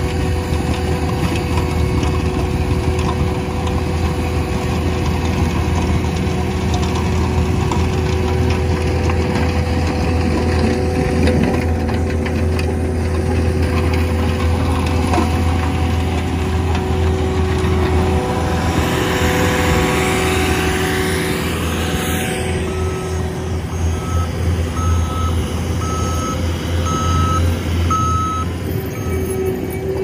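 Skid-steer engine running steadily under load while a Cat SR318 snow blower attachment churns and throws snow. About three-quarters of the way in, a backup alarm gives a series of regular beeps for several seconds.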